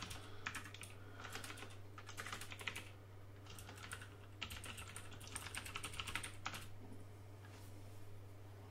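Typing on a computer keyboard: quick bursts of keystrokes that stop about two-thirds of the way through, over a steady low hum.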